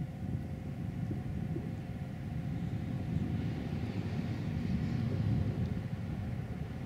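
Low, steady outdoor rumble, with a faint hiss that swells and fades about midway through.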